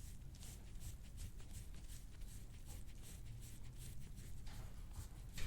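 Faint rubbing and rustling of a chiropractor's hands moving over a patient's skin and clothing, with one short sharp click near the end.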